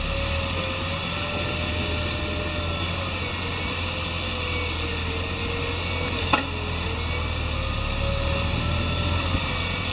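Suzuki Jimny running steadily at low speed off road, a low rumble with a whine that wavers in pitch. A single sharp knock comes about six seconds in, with a smaller one near the end.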